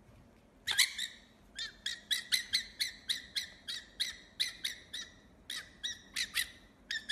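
Fennec fox making a rapid series of short, high chirping calls, about three or four a second, with a brief pause about five seconds in.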